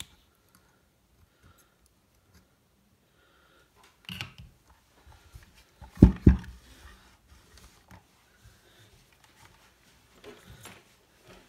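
Handling noise from a loudspeaker and a plastic power-adapter box being moved about on a work table. Scattered light clicks, a knock about four seconds in, and two dull thumps about six seconds in.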